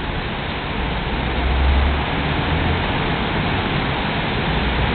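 Heavy rain pouring down in a steady hiss during a thunderstorm, with a low rumble swelling about a second in and again near the end.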